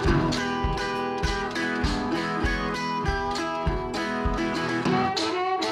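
Background music: a guitar-led country-style tune with a steady beat.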